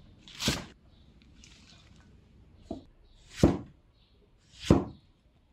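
Cleaver slicing vegetables on a thick wooden chopping block: separate knocks of the blade striking the wood, one every second or so, with a weaker one among them.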